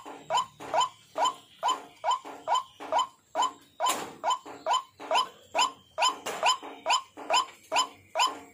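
White-breasted waterhen (ruak-ruak) calling: a steady, repetitive series of short upward-sliding notes, about two a second. It is the call used as a lure for the species.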